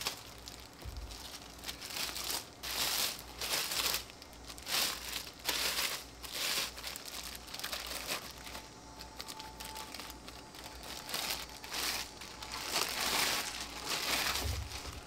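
Clear plastic packing wrap rustling and crinkling in irregular bursts as a rifle is worked out of it by hand.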